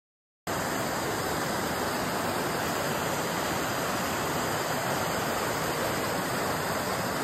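Waterfall: a steady rush of white water pouring over a rock ledge. It cuts in abruptly about half a second in, after a moment of dead silence.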